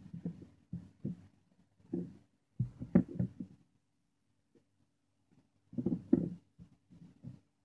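Scattered knocks and taps of small hand tools (soldering iron, tweezers, solder wire) being picked up and set down on a wooden tabletop, the loudest about three seconds in, over a faint steady low hum.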